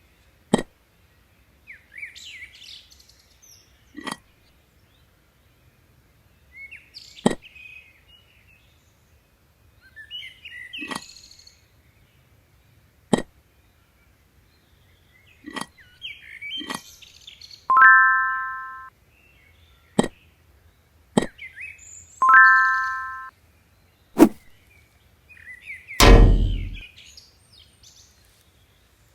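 Bird chirping between a series of sharp clicks and knocks at uneven intervals. Two held beeps come about 18 and 22 seconds in, and a loud deep boom comes near the end.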